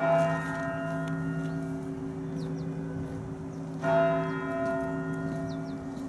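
A large Orthodox church bell tolled slowly, struck twice about four seconds apart. Each stroke rings on in a long humming tone that carries under the next.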